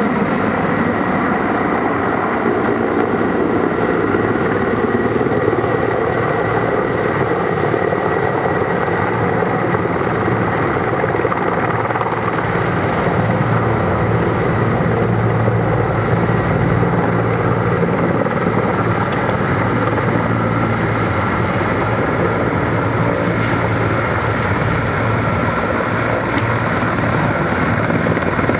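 Sikorsky S-64 Air-Crane firefighting helicopter flying: steady rotor beat with a thin high turbine whine.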